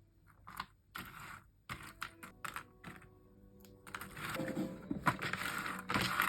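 Cardboard jigsaw puzzle pieces clicking and tapping as they are handled and sorted. Single clicks come first, then a denser run of pieces rattling and sliding against each other from about four seconds in.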